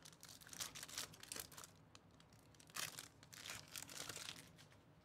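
Foil wrapper of a trading-card pack being torn open and crinkled by hand, in two spells of crackly rustling, the second starting near the three-second mark.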